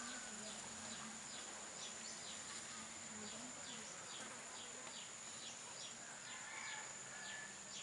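Insects: a steady high whine with a run of short chirps repeating about three times a second.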